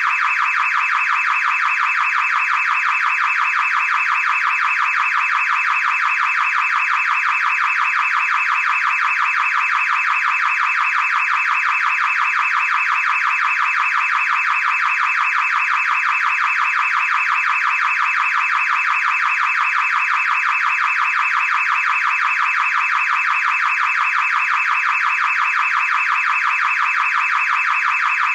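Car alarm going off continuously: a rapidly pulsing, high-pitched electronic tone that holds steady without a break.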